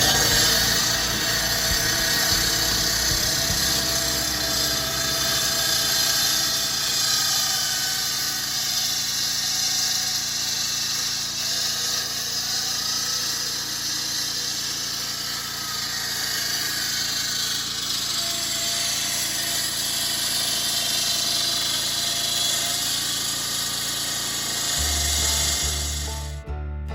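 Electric 16-inch Vevor concrete saw cutting concrete: a steady, loud, harsh cutting noise that stops abruptly near the end. Background music plays under it.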